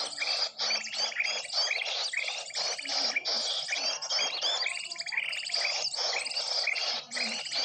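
Dense, unbroken chatter of many small birds chirping and trilling over one another: a recorded bird-lure (pikat) track used to call in small birds.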